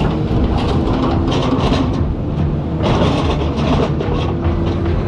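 Excavator engine running under load with repeated irregular clanking and scraping of metal as a car body is torn apart.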